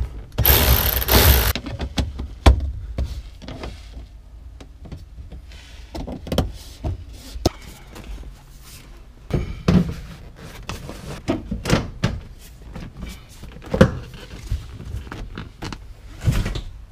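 Cordless ratchet running in two short bursts within the first second and a half, driving in the rear speaker screws. Then scattered thumps and knocks as a vinyl rear seat back is handled and pushed into place.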